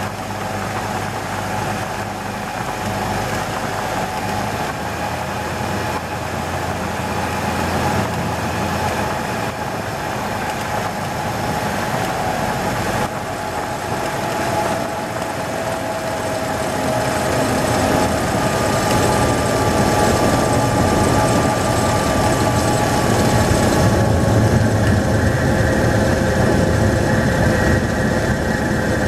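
Cessna 182 Skylane's piston engine and propeller heard from inside the cockpit over airflow noise during landing. The engine note slowly drops in pitch through the second half as the plane slows, and a low rumble builds in as it rolls out on the runway.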